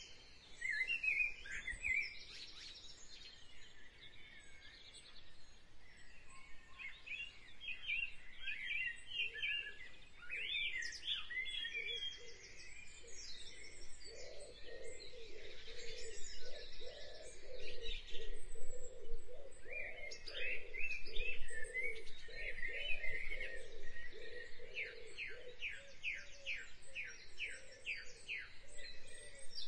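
Several birds chirping and singing, their calls overlapping. From about halfway a lower pulsing call joins in, and near the end one bird repeats a quick series of sharp notes, about three a second.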